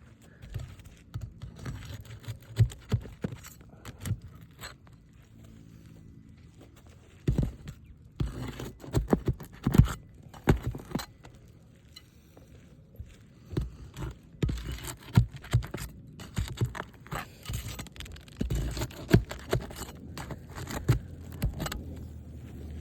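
A hand tool scraping and prying under brittle asphalt roof shingles, with irregular sharp clicks and scrapes as a damaged shingle is worked loose for removal. The scraping is busiest from about seven seconds in.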